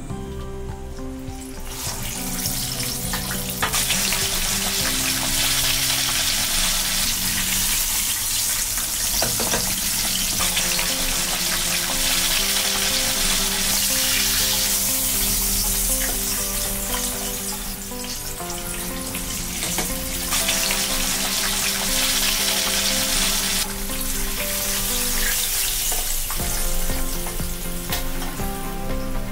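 Tapioca-starch-coated chicken breast deep-frying in hot vegetable oil: a loud, steady sizzle that builds over the first few seconds, then swells and eases a few times. Background music plays underneath.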